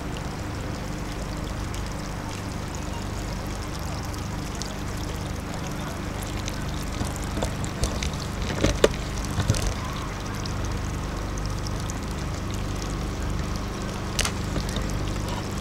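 Steady trickle of running water with a low steady hum underneath, and a few short knocks about eight to ten seconds in.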